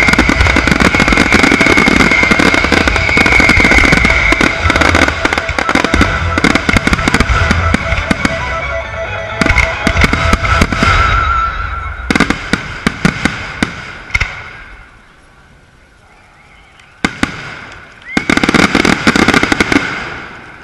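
Fireworks display: a dense, continuous barrage of bangs and crackling that thins out after about ten seconds into a few single bangs, a short lull, and one last loud flurry near the end.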